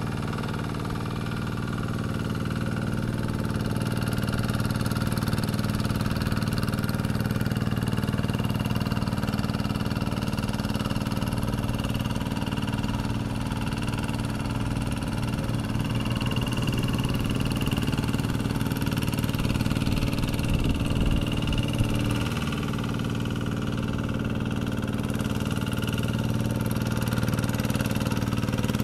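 Kubota RD110Di-2T 11 hp single-cylinder diesel on a two-wheel hand tractor running steadily under load while rotary-tilling a wet paddy. A few knocks and a brief dip in the engine note come about two-thirds of the way through.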